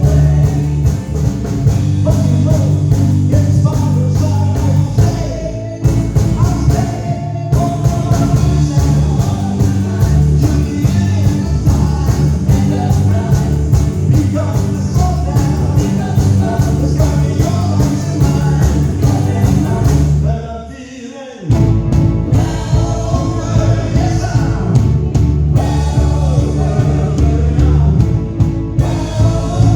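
A rock and roll song playing, with singing over a full band; the music drops out for about a second roughly two-thirds of the way through, then comes back.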